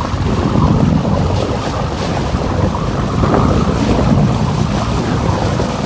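Strong wind buffeting the microphone in a steady, loud roar, with the rush of water and a boat underneath.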